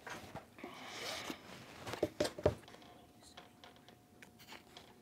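Quiet indoor background with rustling and handling noises, a cluster of sharp clicks and knocks about two seconds in, and a faint steady hum through the second half.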